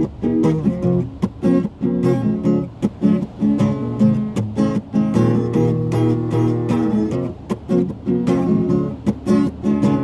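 Acoustic guitar strummed, chords played in a steady rhythm.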